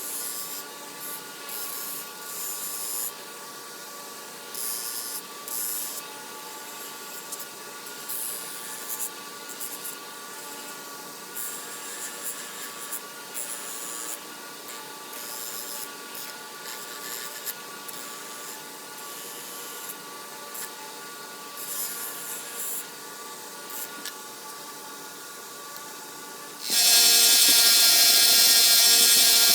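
Rotary tool spinning a fiber abrasive wheel with a steady whine, and short scratchy bursts every second or two as the wheel bears on the rusty steel pliers. Near the end a much louder, steady sanding hiss cuts in suddenly.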